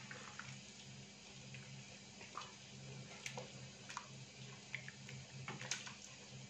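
A spatula stirring rice and hot water in a large stainless-steel pot: faint, scattered taps and scrapes against the pot over a low steady hum.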